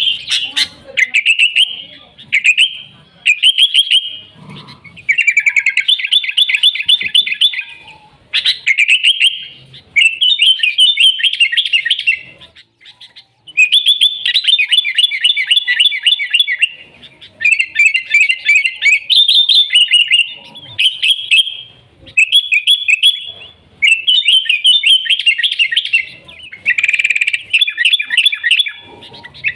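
Sooty-headed bulbul (kutilang) singing vigorously, the way bird-keepers call 'gacor': loud, rapid, chattering whistled phrases, each a second or two long, repeated with short breaks.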